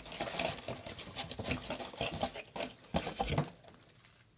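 Crisp, dry crackling and rustling of preserved hydrangea florets handled in the fingers, a dense run of small crackles that dies down near the end.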